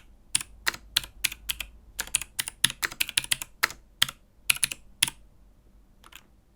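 Mechanical keyboard with clicky Helix Skylar switches, keys struck one at a time at an uneven pace of about two or three a second, each a sharp click. The keystrokes stop about five seconds in, with one faint keystroke a second later.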